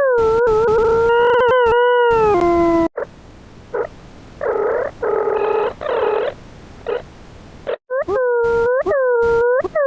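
Electronic tones generated in the Desmos graphing calculator: a wavering, gliding tone with overtones that steps up and then drops about two seconds in, a quieter buzzy stretch with short tone blips, and from about eight seconds a tone swooping up and down over and over, broken by clicks.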